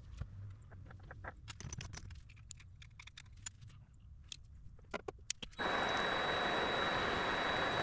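Light clicks and taps of small metal parts and tools being handled. About five and a half seconds in, a workshop machine switches on abruptly and runs steadily with a thin high whine.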